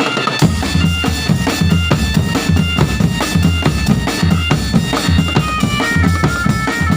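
Drum band playing a tune: a reedy wind melody of held notes that steps down in pitch toward the end, over a steady beat of bass drum and snare about twice a second.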